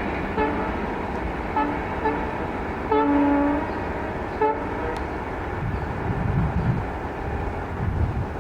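WDP-4B diesel locomotive air horn sounding a string of short toots, with one longer blast about three seconds in, then falling silent over the rumble of the passing train. It is a playful horn pattern sounded for a level crossing gate.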